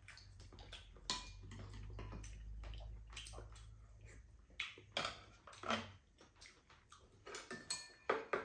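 Chopsticks and a metal spoon clicking and clinking against ceramic bowls and plastic containers while eating, in scattered light taps, some with a brief ring. A low steady hum runs underneath and stops about six seconds in.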